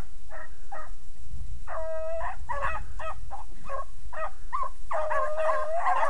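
A pack of young hounds baying on a rabbit's trail. Short barks and yelps, one longer drawn-out bay about two seconds in, then several dogs giving tongue together from about five seconds in.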